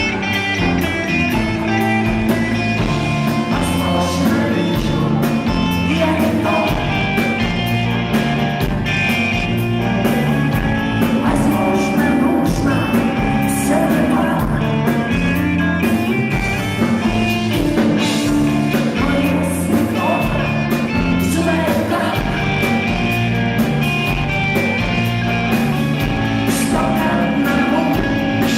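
Live rock band playing, with guitar, bass and drums, and singing over it.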